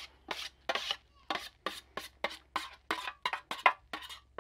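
A spoon scraping thick potato-salad dressing out of a metal container, in a rapid series of short strokes that come quicker toward the end.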